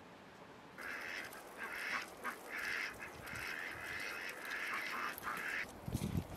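Domestic fowl calling, a run of harsh, repeated calls lasting about five seconds, with a low rumble of wind on the microphone near the end.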